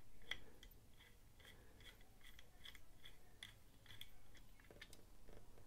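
Small precision screwdriver turning a screw into the titanium handle of a Bestech Shodan folding knife: faint, evenly spaced clicks, about two or three a second.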